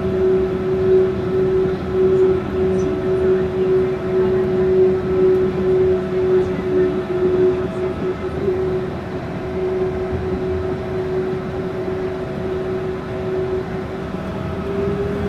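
Yurikamome rubber-tyred automated guideway train running, heard from inside the cab: the rumble of rubber tyres on the concrete guideway under a steady whine from the traction motors. The whine starts to rise in pitch near the end.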